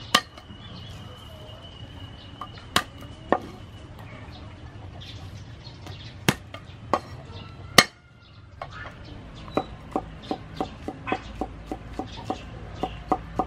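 Steel cleaver striking garlic cloves on a wooden chopping board. First come a few separate heavy knocks as the cloves are crushed, then steady chopping at about three strokes a second in the latter part.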